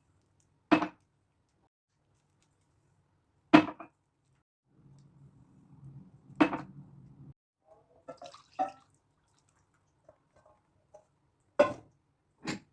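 Kitchenware being handled: about six sharp, separate knocks and clacks a couple of seconds apart, with a faint low hum in the middle.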